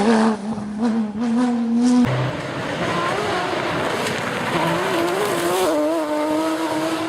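Porsche sports-car engine running loud at fairly steady revs just after the revs drop from a high pitch. About two seconds in there is an abrupt cut to another steady engine note, with slight wavering in pitch.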